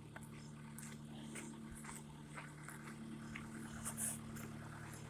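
Backhoe engine idling steadily, a low even hum, with scattered light clicks.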